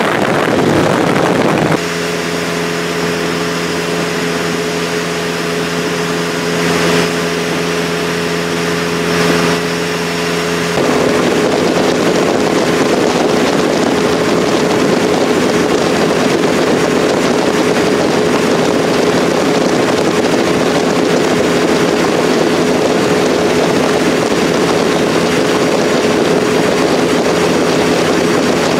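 Vehicle cruising at highway speed: rush of wind and road noise with a steady engine drone that holds one pitch. The engine tones are strongest from about 2 s to 11 s; after that the wind and road rush dominate. Two brief whooshes come midway.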